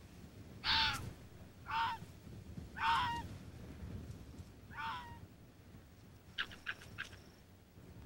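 Arctic fox cubs calling: four short yelps spread over the first five seconds, then a quick run of faint clicking chirps about six and a half seconds in.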